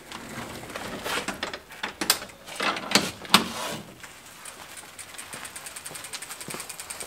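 A wooden yard gate creaking and knocking shut, with its sharpest bang about three seconds in, then the fast, even ticking of a bicycle's freewheel hub as the bike is wheeled along.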